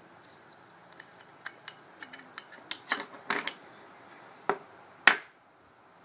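Small metallic clicks and taps from handling a Zippo-style lighter as its insert is pulled out of the metal case, ending in one louder sharp click about five seconds in.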